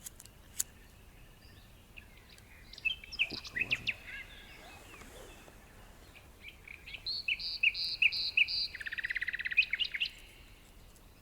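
A songbird singing: a few chirps about three seconds in, then a phrase of repeated high notes that ends in a fast trill near ten seconds.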